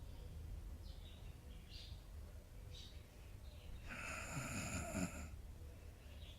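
A sleeping dog snoring: fainter breaths early on, then one louder snore about four seconds in that lasts over a second.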